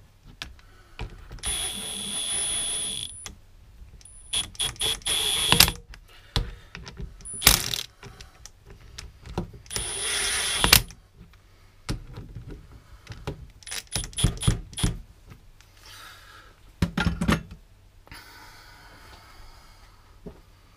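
Cordless brushless impact gun on a low torque setting rattling down the ring-gear bolts of a Detroit TrueTrac differential. It runs in three short bursts of about a second each, each with a high steady motor whine. Clicks and clanks of the tool and bolts come between the bursts.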